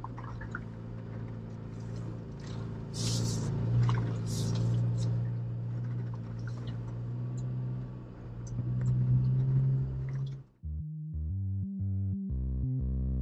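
Jeep's engine running at low speed through a creek crossing, with water splashing around the tyres in two rushes a few seconds in and the engine note swelling near the end. About ten seconds in it cuts off sharply to electronic synth music.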